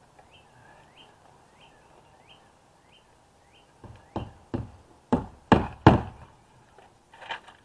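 An oversized claw hammer drives roofing tacks into a window's nailing flange with about six sharp blows in quick succession in the second half, the loudest near the middle, and one more blow near the end. Before the hammering, faint high chirps repeat about three times a second.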